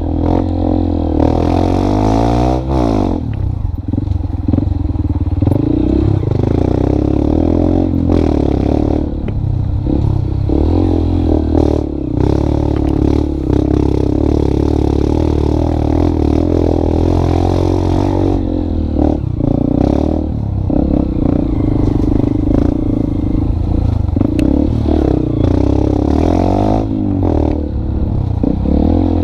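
Motorcycle engine running steadily, its pitch rising and falling a couple of times as the speed changes, with some clatter.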